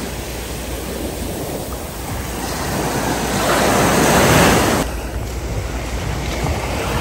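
Small waves breaking and washing up onto a sandy beach: a steady rush of surf that swells to its loudest about four seconds in, then drops suddenly just after.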